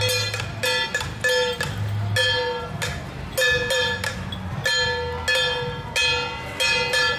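Small hand gong struck in a steady beat about twice a second, each stroke ringing briefly with a bright metallic tone, keeping time for the Ba Jia Jiang troupe's dance steps.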